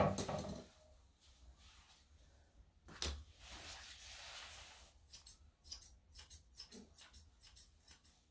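Grooming scissors snipping a dog's tail hair: a quick run of sharp snips, two to three a second, in the second half. Before that there is a soft rustle of the hair being handled, and at the very start a brief pitched sound.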